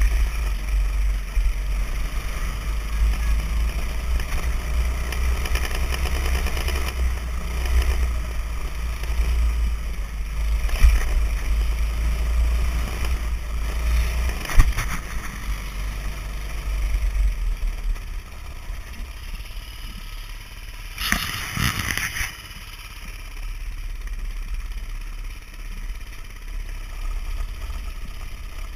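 Off-road vehicle engine running while travelling a rough dirt trail, under heavy wind rumble on the microphone; the rumble eases about two-thirds of the way through, with a few knocks and a short burst of louder noise near the end.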